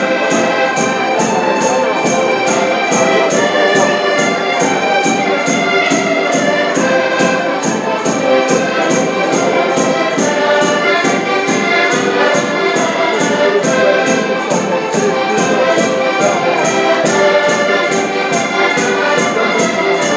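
Accordion ensemble playing a Portuguese folk tune, several accordions sounding held chords and melody together over a bass drum that keeps a steady beat of about three strokes a second.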